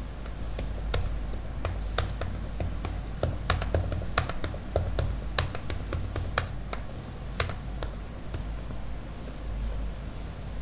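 Typing on a computer keyboard: irregular keystrokes, some in quick runs and some single, over a low steady hum.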